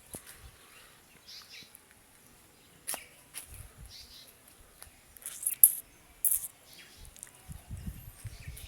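Scattered faint bird chirps, with a few short sharp crackles, the loudest about five and a half and six seconds in.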